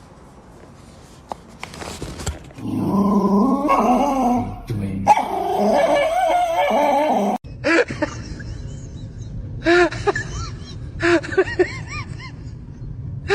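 Dog vocalising: a few seconds of wavering whining that cuts off suddenly, then short high yips in small clusters.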